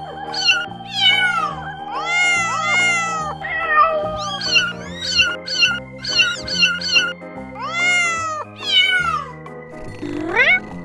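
Very young kittens mewing over and over: many short, high-pitched cries that rise and fall, several often overlapping, over background music with held synth notes. A rising glide comes near the end.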